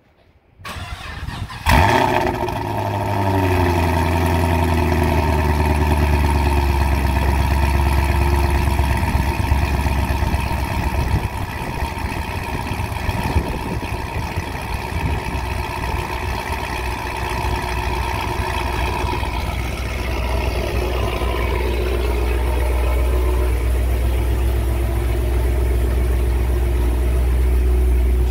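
2015 Chevy SS's supercharged 6.2 L LS3 V8 (ported LSA supercharger) cold-starting on E85: a brief crank, catching with a loud flare about two seconds in, then a fast idle whose pitch drops over the next several seconds and settles into a steady idle.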